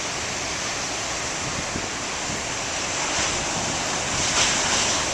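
Big ocean waves breaking and washing up on the beach as a steady surf rush, growing a little louder about four seconds in, with wind buffeting the microphone.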